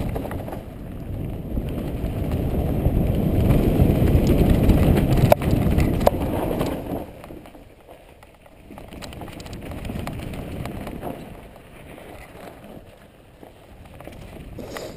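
Mountain bike riding down a dirt singletrack: a loud rumble and rattle of the tyres and bike over the rough trail, with a couple of sharp knocks about five and six seconds in. It drops to a quieter, uneven rumble about seven seconds in.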